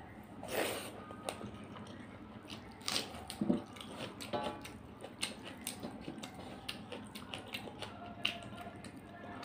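Close-miked eating sounds of rice and chicken curry eaten by hand: wet chewing and lip smacks, with fingers mixing rice on a brass plate. Irregular small clicks run throughout, with a few louder smacks.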